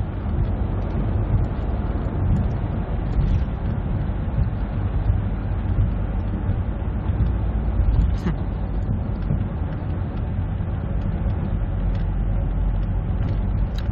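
Steady low rumble of road and engine noise heard inside the cabin of a car driving along a highway, with a brief click about eight seconds in.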